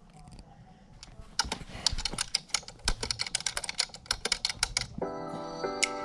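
Rapid, irregular clicking like typing on a computer keyboard, played from a tablet. About five seconds in the clicking stops and music with held notes begins.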